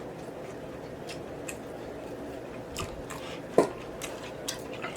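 Close-miked chewing and biting of food, with scattered wet mouth clicks and smacks and one brief louder sound about three and a half seconds in.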